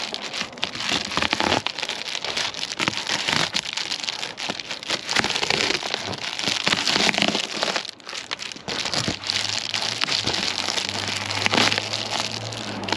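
Reflective foil bubble insulation crinkling and crackling as it is handled and cut with scissors, in a rapid irregular run of sharp rustles.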